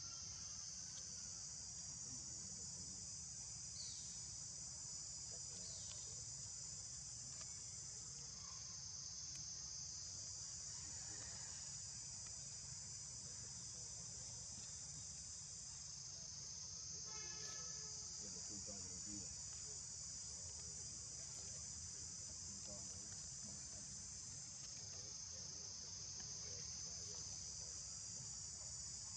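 A steady high-pitched drone of insects chirring, unbroken throughout, with a brief pitched call about seventeen seconds in.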